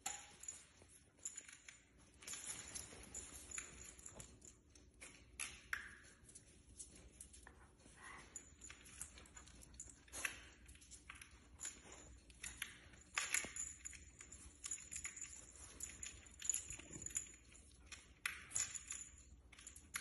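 Puppy playing with a pom-pom toy hanging from a cat tree: irregular light clicks, taps and scuffs from its claws on the hard floor and its mouth on the toy.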